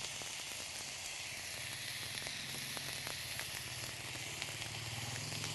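Rice, egg and garlic frying in an oiled wok: a steady sizzle, with a few faint clicks and a low hum beneath.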